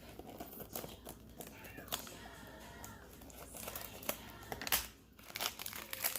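Paper and cardboard packaging of a perfume box crinkling and rustling as it is opened by hand, with short crackles and a louder flurry about five seconds in. A pop song plays faintly in the background.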